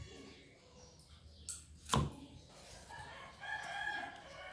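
A kitchen knife knocks twice against a wooden chopping board as it cuts through a vegetable, the second knock about two seconds in and louder. Near the end a rooster crows in the background.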